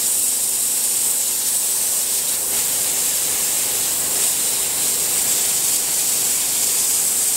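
Compressed-air blow gun hissing steadily as it blasts through a small wire-mesh gauze container, blowing solvent off small parts held inside it. A faint steady hum sits underneath.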